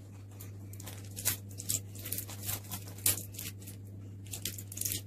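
Scattered light clicks and rustles of plastic surprise-egg capsules and their wrappers being handled, over a steady low hum.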